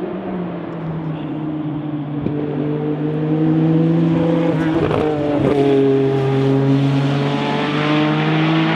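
Racing car engine running hard and growing louder, with a quick upshift about five seconds in: the note drops sharply with a brief crackle, then holds steady.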